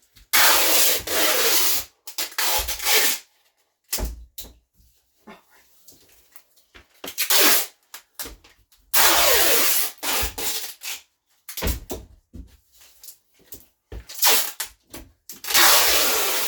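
Tape being pulled off a roll in rasping pulls of a second or two, several times over, as a bathroom mirror is taped across and up and down before it is broken out.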